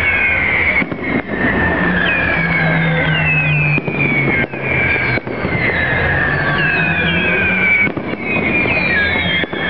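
Fireworks display with many whistling fireworks, their whistles overlapping and each falling in pitch, over a continuous noise of the display.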